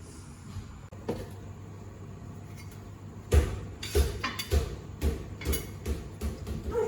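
Repeated knocks of kitchen utensils, one about a second in and then a run of about two a second beginning a little past three seconds in.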